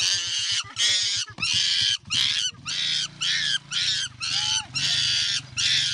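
A small monkey screaming over and over in rapid shrill calls, about two a second, with no let-up.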